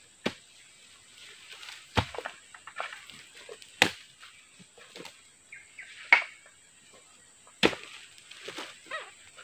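Five sharp chopping knocks of a harvesting tool striking oil palm fruit bunches and their stalks, spaced irregularly, with smaller knocks and rustling of fronds and leaf litter in between.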